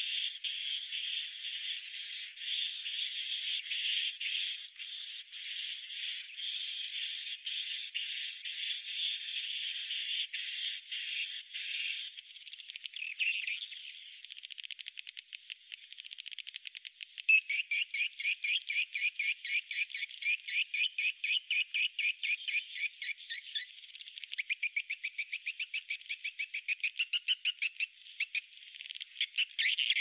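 Swiftlet roosting lure call (suara inap): dense, high twittering of many swiftlets. About halfway through it changes to fast trains of rapidly repeated chirps. It is thin and high, with nothing lower beneath the chirps.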